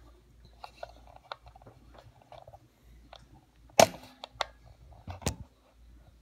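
Clicks of the controls on a Bell & Howell 1574 16mm sound projector being worked to switch it on: small faint clicks and taps, then three louder sharp clicks in the second half, the loudest about four seconds in.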